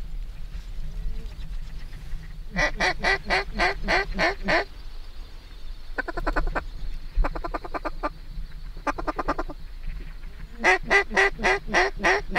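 Mallard quacking: four runs of quick, evenly spaced quacks, the first and last loudest, over a steady low rumble.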